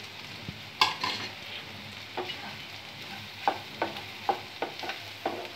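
Spatula stirring and scraping scrambled eggs with onion in an oiled nonstick pan over a faint sizzle: one sharp knock on the pan about a second in, then a run of short scrapes, about two a second, from about two seconds in.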